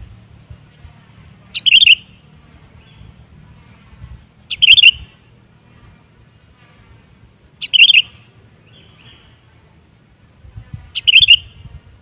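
Sooty-headed bulbul (kutilang) giving four short, loud calls, one about every three seconds.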